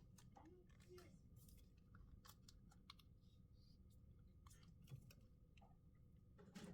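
Near silence with faint, scattered clicks from small phone parts and tools being handled, over a low steady hum.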